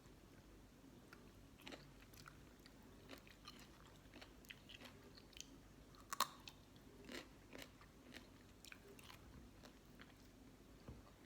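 Faint close-up chewing with scattered crunchy clicks and one sharper crack about six seconds in, as a person eats pickled sea crab with sour mango salad.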